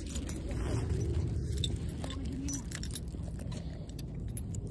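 Metal chain leash and collar jingling with scattered light clinks as the dog is held, over a steady low rumble.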